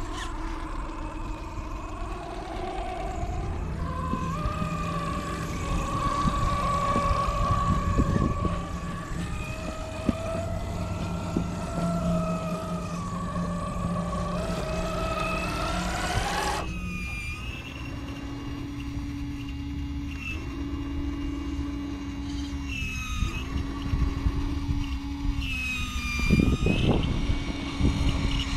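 Radio-controlled crawler truck's electric motor and gears whining, the pitch rising and falling with the throttle. About two-thirds of the way in the sound changes abruptly to a lower steady hum broken by short high whines that rise and fall.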